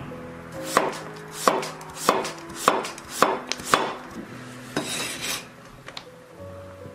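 Cleaver slicing a peeled pumpkin into thin slices on a wooden chopping board: six sharp knocks of the blade on the board, about one every 0.6 s, followed about five seconds in by a short scraping rustle as the slices are moved.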